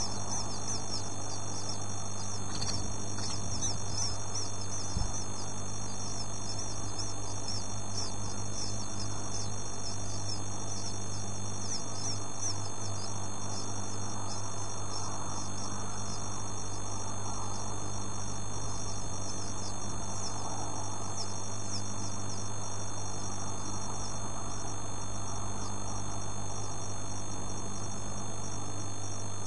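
Rapid, high-pitched cheeping of two-day-old bird chicks, many short peeps in quick succession, over a steady low electrical hum.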